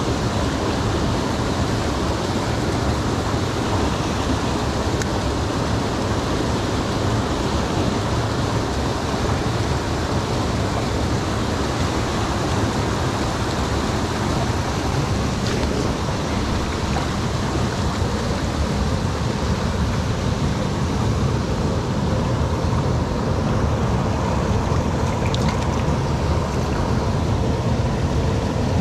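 Steady rush of a fast-flowing creek.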